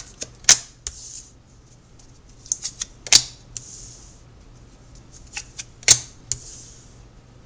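Tarot cards being shuffled and laid out by hand. There are three sharp card snaps about two and a half seconds apart, each followed by a short sliding hiss, with lighter clicks of cards in between.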